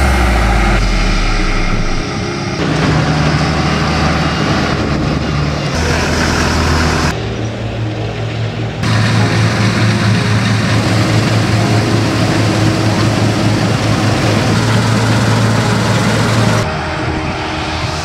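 Deutz-Fahr 6060 HTS Climber combine harvester running under load while harvesting wheat: a steady engine hum with the dense noise of the threshing machinery. The sound changes abruptly several times, at cuts between shots.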